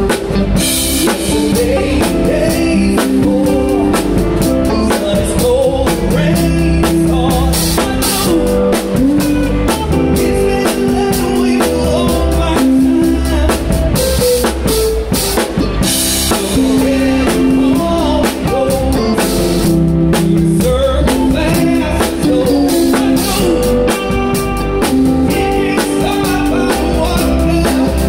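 Live band playing a rock song, heard from right at the drum kit: a Gretsch Catalina Club kit played with sticks, loud and steady, with a saxophone and other instruments holding notes over the beat.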